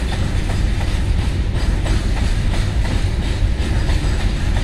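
Freight train's container wagons rolling across a railway bridge: a steady heavy rumble with repeated clacks of the wheels over the rail joints.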